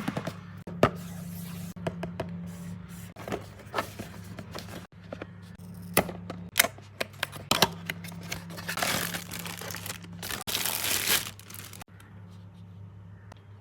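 Product packaging being opened by hand: scattered clicks and taps with crinkling, and two longer spells of tearing or rustling, about eight and about ten and a half seconds in.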